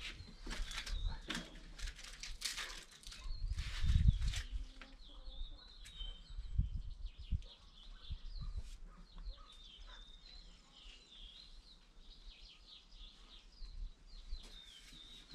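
Small birds chirping and twittering in quick, high calls, with rustling and knocks in the first few seconds and a low thump about four seconds in.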